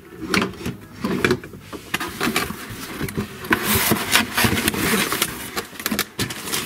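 Hands rummaging in a cardboard toy box: packaging rustling, with scattered light knocks and clicks and a burst of rustling about halfway through.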